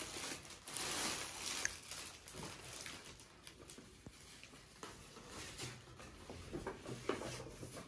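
Gift packaging rustling and crinkling as it is opened by hand, in irregular soft rustles with a few light clicks.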